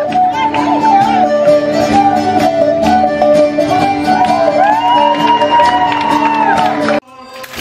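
Live traditional Irish music: a banjo and a bending lead melody over steady held low notes with a regular beat. It cuts off suddenly about seven seconds in.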